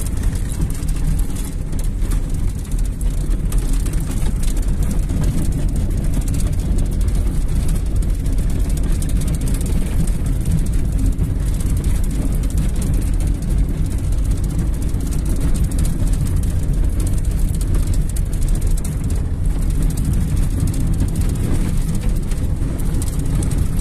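Steady low rumble of a car's engine and tyres on a dirt road, heard from inside the cabin. It grows over the first few seconds and then holds even.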